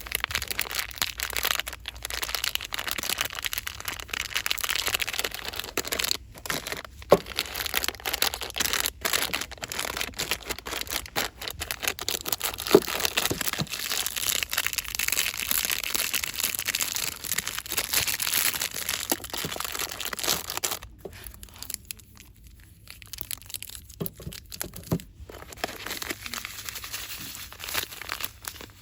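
Fast, continuous rustling and crinkling of store-bought packaging, with a few sharp clicks. It eases off for a few seconds about 21 seconds in, then resumes.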